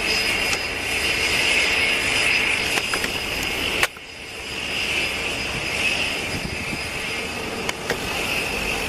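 Airbus A320-family airliner's jet engines running with a steady high whine as it rolls along the runway. About four seconds in the sound breaks off with a click, drops, then builds back up.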